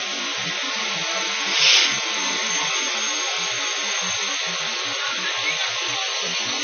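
Fire engine running its pump to supply charged hoses, a steady mechanical hiss and drone, with a short louder burst of hiss about one and a half seconds in.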